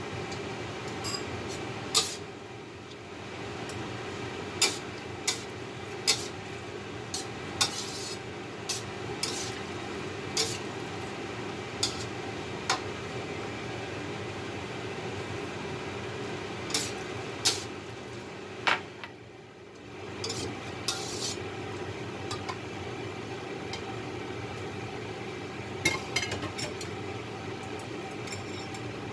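A spatula stirring and tossing fusilli with prawns and squid in cream sauce in a metal wok: soft scraping broken by sharp clanks of the spatula on the pan at irregular intervals, over a steady background hum.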